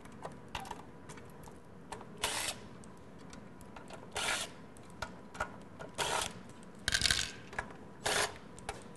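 Cordless drill-driver run in about five short bursts, backing out the cover screws of a metal instrument housing, with small clicks of screws and tools between the bursts.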